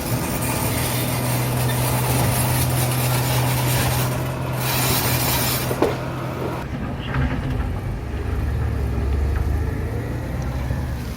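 Motor vehicle engine running steadily with hiss; about six seconds in the sound shifts, after a short click, to a lower, deeper engine hum.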